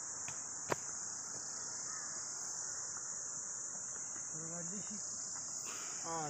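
Steady, high-pitched shrilling of an insect chorus, with one sharp click a little under a second in.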